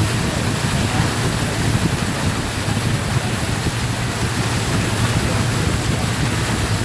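Tour boat's motor running steadily under a constant rush of wind and water noise while under way.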